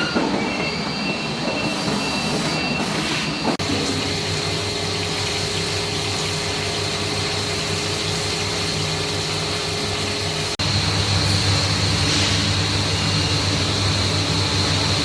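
Diamond wire loop saw running steadily, a constant high whine over a low hum. The sound shifts abruptly twice, about three and a half and ten and a half seconds in, then runs a little louder.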